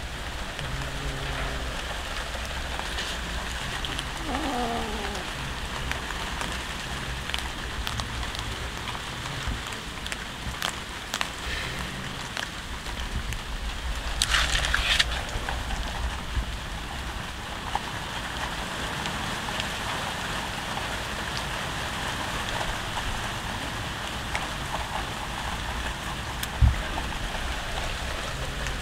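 Cats chewing raw fish close by, a steady wet crackling with faint clicks. A single falling meow comes about four seconds in, a short sharp burst of noise about halfway, and one thump near the end.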